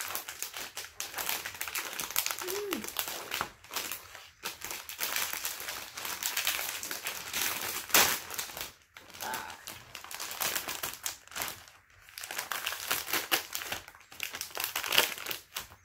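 Plastic wrapper of a Glico Caplico Mini snack pack crinkling steadily as it is handled, squeezed and pulled at to get it open. There is a sharp, loud crackle about eight seconds in.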